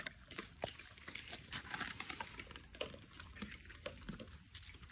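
Bernese mountain dog slowly chewing a dried tendon chew: faint, irregular crunching and clicking.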